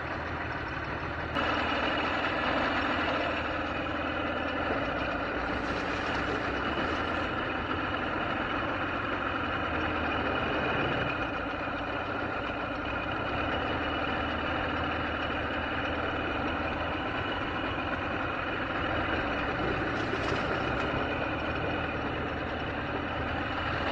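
Mercury 500 50 HP two-stroke outboard motor running steadily with its lower unit in a test barrel, stepping up in loudness about a second in and holding there. It is now pumping cooling water through the motor on its new impeller.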